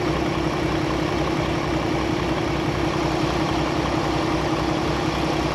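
Semi truck's diesel engine idling, a steady low throb with an even pulse.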